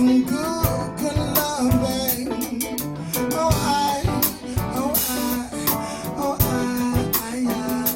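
Acoustic guitar-led funk and soul band music, an instrumental passage with guitar lines over regular percussion hits.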